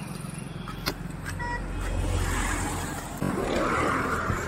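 Street traffic: a motor vehicle rumbling past, growing louder around the middle, with a short high beep about a second and a half in.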